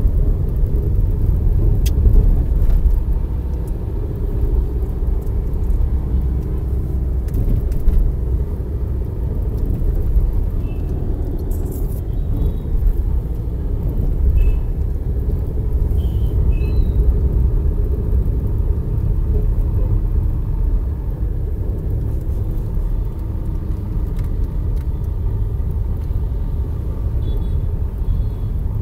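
Steady low road and engine rumble of a vehicle driving through town traffic, heard from inside the vehicle, with a few faint short high-pitched tones in the middle and near the end.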